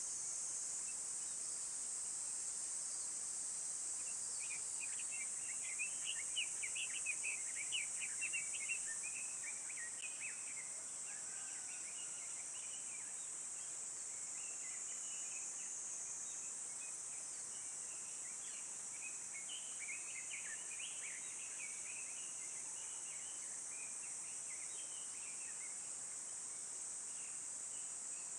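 Woodland ambience: a steady high-pitched insect drone throughout, with bouts of rapid bird chirping, loudest several seconds in and returning in the middle.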